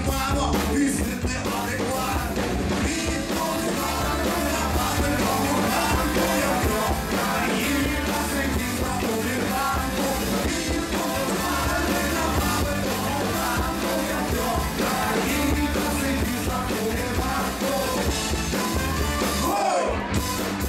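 Live rock band playing a song: a man sings in Ukrainian into a microphone over electric guitar and a steady low bass line.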